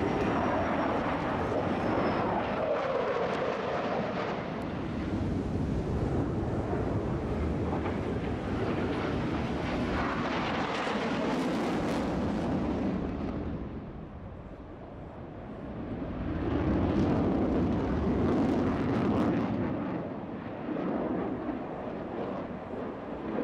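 Jet noise from U.S. Air Force Thunderbirds F-16 fighters flying the show, with at least one jet in afterburner; a continuous rumbling roar. It fades a little past halfway and then swells again as a jet comes back around.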